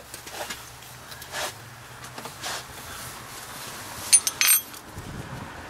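Light handling knocks, then a quick cluster of sharp metallic clinks with a short ringing about four seconds in: metal hand tools and parts clinking together in a car's engine bay.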